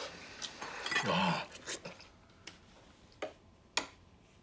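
Metal spoons tapping and clinking against ceramic rice bowls: a few sparse sharp clicks, with a brief murmur of voice about a second in.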